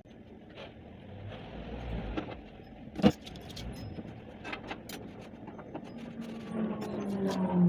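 Light clicks and knocks from things being handled in a kitchen, with one sharp clack about three seconds in. Near the end a low droning tone slides slowly down in pitch.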